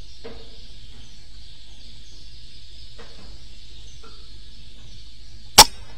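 A single air rifle shot about five and a half seconds in: one sharp crack, by far the loudest thing, over a steady background hiss.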